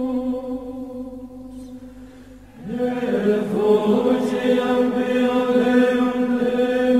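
Slow chant-like vocal music with long held notes. It fades away, and a new held phrase swells in just before three seconds in.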